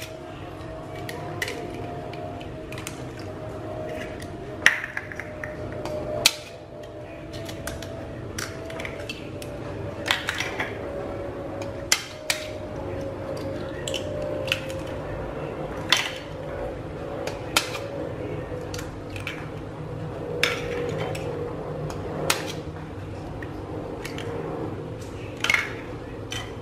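Duck eggs being cracked one after another with a kitchen knife, sharp taps and shell cracks at irregular intervals, with shells set down on a ceramic plate. Under it runs a steady hum whose tone slowly falls in pitch.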